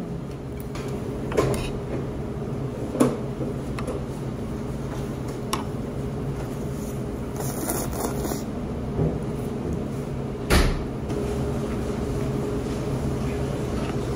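Metal chopsticks and spoon clinking now and then against dishes while eating, over a steady restaurant hum. There are a few sharp clinks, the loudest about ten and a half seconds in.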